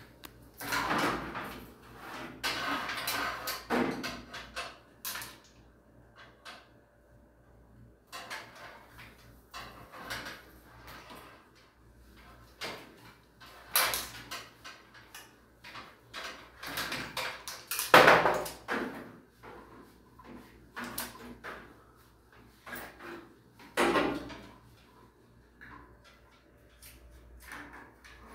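Irregular clatter of hand tools and fittings being handled and knocked, with scattered clicks and knocks and a rustling stretch early on. The loudest knock comes about 18 seconds in.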